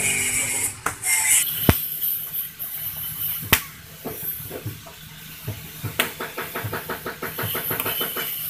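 Hand-tool work on a car body: three sharp knocks spread a couple of seconds apart, then a quick run of ticks at about eight a second, over a steady hiss.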